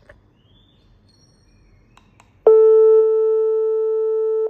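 Tonmind D26V IP video intercom's speaker playing a steady electronic calling tone, starting suddenly about halfway through after a few faint clicks: the intercom placing an outgoing SIP call that is ringing at the other end.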